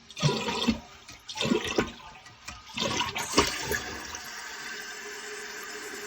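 Older American Standard toilet flushing: water rushes into the bowl in three loud surges, then gives way to a steady hiss as the newly installed fill valve refills the tank.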